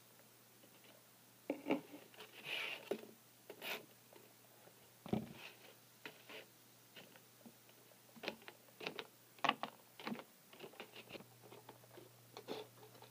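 Light irregular taps, clicks and scrapes of a small plastic toy figurine being hopped and bumped across a hard floor.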